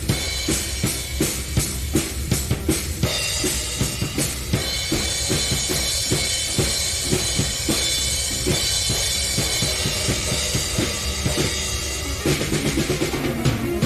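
Live studio jam of drum kit and keyboard. Dense bass drum and snare hits run throughout, and cymbals ring out continuously from about four seconds in until near the end, with keyboard tones underneath.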